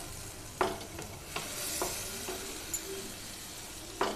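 Vindaloo spice paste sizzling in oil and a little water in a nonstick frying pan while a wooden spatula stirs and scrapes it, with a few sharp scrapes of the spatula against the pan, the first about half a second in and the loudest.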